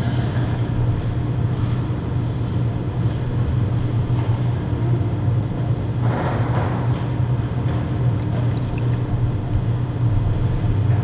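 Steady low mechanical hum that holds level throughout, with a short burst of noise about six seconds in.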